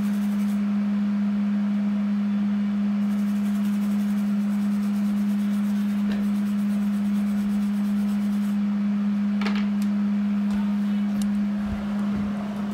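A steady low-pitched hum that does not change, with a couple of faint brief scrapes from hand work on an aluminum cylinder head.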